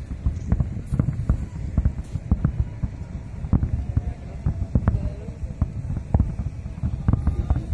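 Aerial firework shells bursting in a rapid, irregular string of deep booms, with sharper cracks among them.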